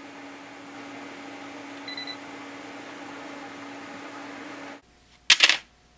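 Steady electric hum of workshop welding equipment, with a short high beep about two seconds in. The hum cuts off near the end, and a brief loud hissy burst follows.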